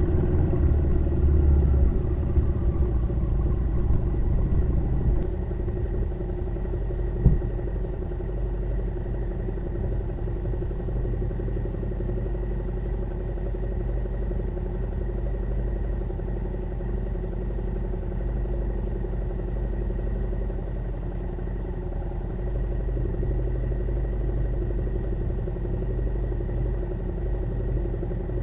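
Motorcycle engine running steadily while riding, with a deep low rumble that is louder for the first couple of seconds and then settles to an even note. A single sharp knock about seven seconds in.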